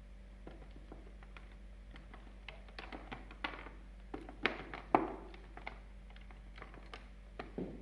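Scattered light clicks and taps of metal tools and parts being handled on a workbench, with a few louder knocks between about three and five seconds in, over a faint steady hum.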